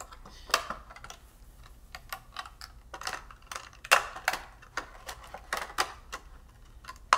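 Thin clear acetate sheet crackling and clicking in irregular taps as fingers bend it and push its small tabs into slits, the sharpest click about four seconds in.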